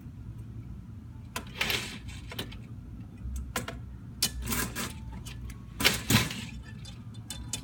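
Fireworks going off: a series of sharp bangs and crackles, irregularly spaced and loudest about six seconds in, over a steady low rumble.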